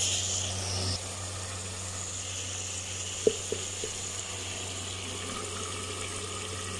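Meat and spices sizzling in hot oil in a pot. The hiss drops to a quieter, steady level about a second in, and there is a single knock about three seconds in.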